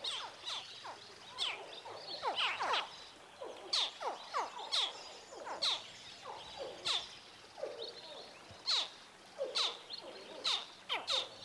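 Hatching crocodiles calling: a string of short, high chirps that each drop steeply in pitch, one or two a second. These are the cries of newly hatched young that draw the mother to the nest.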